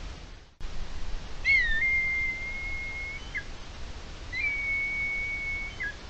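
Red kite calling: two long, high whistles, each opening with a quick upward hook, held at a level pitch for about a second and a half, then dropping at the end. A steady hiss lies underneath.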